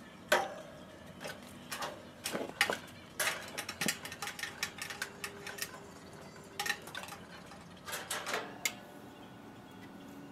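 Irregular metallic clicks, taps and clanks from hand tools and fittings being handled on a heat pump's outdoor unit, coming in loose clusters with quiet gaps between; a sharp click near the end.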